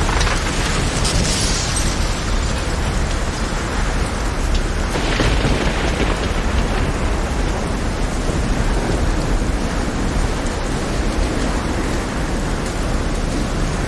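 Heavy rain with a steady deep rumble of thunder underneath, and two louder swells of hiss, one at the start and one about five seconds in.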